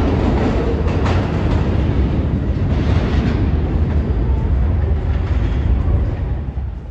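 New York City Subway train running through the station with a steady heavy rumble, which falls away about six and a half seconds in as the train moves off.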